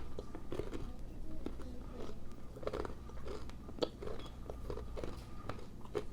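Close-up crunchy chewing of a seed-and-nut snack bar: irregular crunches, a few each second, with a couple of sharper cracks.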